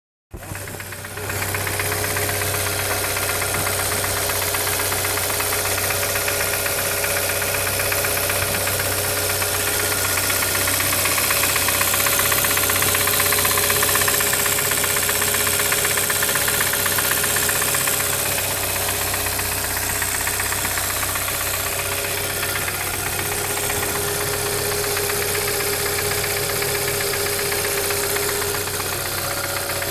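2013 Hyundai Santa Fe engine running steadily with a rapid, persistent knock, which the owner suspects is a wrist pin or piston defect in the brand-new engine.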